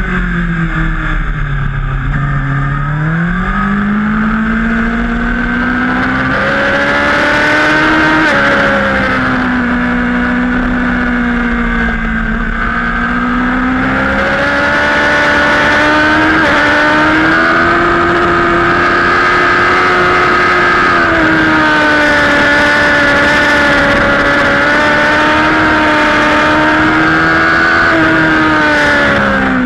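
Superbike engine heard from onboard while racing. Its pitch falls under braking at the start, climbs as the throttle opens, then holds high and fairly steady, and drops again near the end.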